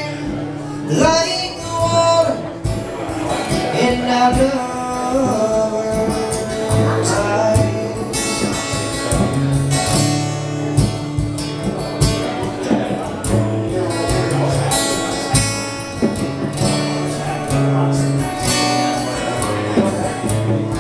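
Live band music led by acoustic guitar, with steady bass notes and strummed chords, in a passage where no lyrics come through.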